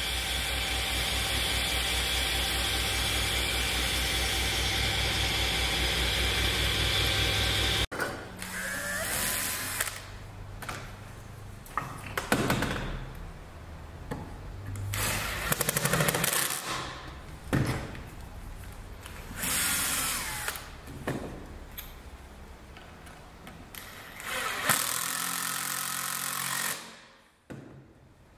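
Table saw running steadily for about the first eight seconds, its blade spinning after passing through an end-grain wooden block. After an abrupt break, a cordless drill runs in several short bursts, each climbing in pitch as it spins up, drilling through the holes of a metal plate into the wooden block.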